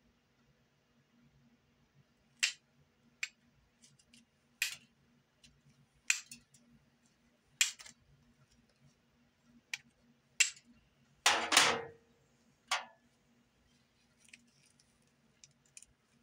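Steel striker struck against flint: about nine sharp metallic strikes at irregular intervals, with a longer rasping double strike about two-thirds through. The strikes throw sparks onto char cloth on the flint, catching an ember.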